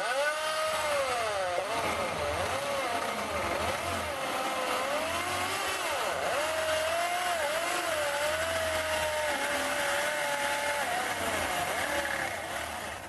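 Electric drill running a stepped drill bit into the thin wall of a tin can, its motor whine wavering up and down in pitch with trigger and load, then dying away near the end. The drill's gearbox is noisy, which the owner says is dying.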